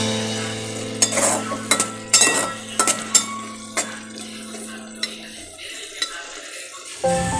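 Metal spoon stirring and scraping a frying tomato mixture in an aluminium pot, with irregular scrapes and clinks against the pot over a sizzle.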